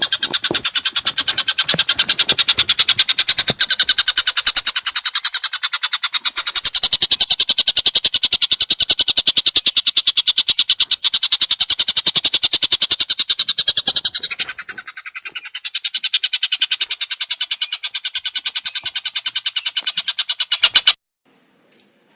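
A songbird call from a cage-bird training recording: a long, rapid trill of evenly spaced high notes that cuts off suddenly near the end.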